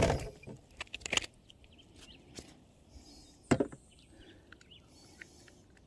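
Light clicks and knocks of hands handling a small peacock bass and working a fly out of its mouth in a kayak, with one sharper knock about three and a half seconds in.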